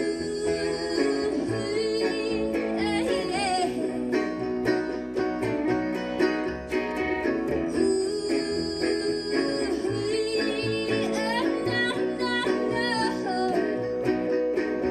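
A small band playing a song live on two electric guitars and an upright double bass, plucked, with a steady beat in the bass.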